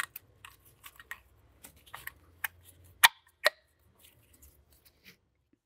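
Small metallic clicks and rattles as a new brake pad is worked into a disc-brake caliper by hand. About three seconds in come two sharp clicks, half a second apart, as the pad's spring clip snaps into the caliper piston.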